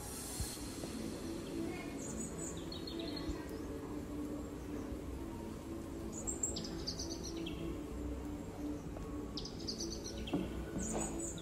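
Soft background music with a steady low pulsing tone, overlaid by short high bird-like chirps that come in quick phrases stepping down in pitch every few seconds.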